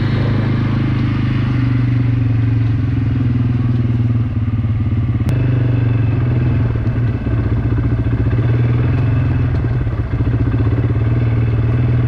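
ATV (quad bike) engine running steadily, with a single sharp click about five seconds in.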